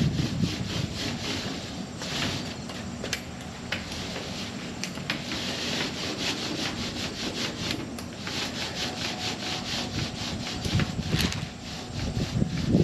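Quick, repeated rubbing or scraping strokes against a surface, in a steady rhythm, like hand work on a car body panel.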